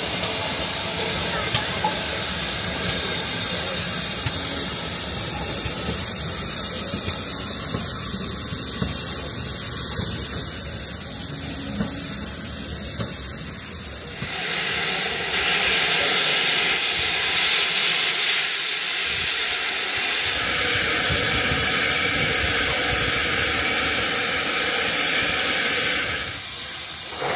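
Steam hissing from a GWR Hall class steam locomotive, with a low rumble underneath. About halfway through the hiss turns much louder and higher, holds for about twelve seconds, then drops back shortly before the end.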